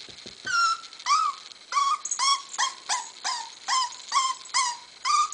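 Seven-week-old puppy whining in a run of about eleven short, high cries, roughly two a second, each rising and then falling in pitch. It is hesitating at the top of a staircase it is reluctant to go down.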